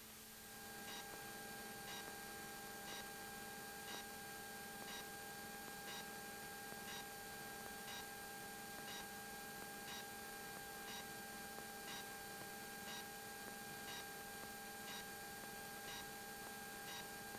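Faint steady electrical hum of several pitches, with a soft tick about twice a second.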